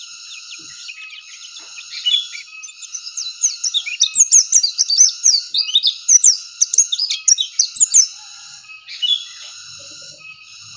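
Pleci dakun, a white-eye, singing a fast, high twittering song of quick chirps and sweeps, loudest in the middle and stopping about 8 seconds in, with one more chirp a second later. A steady high buzz comes and goes behind it in spells of a second or two.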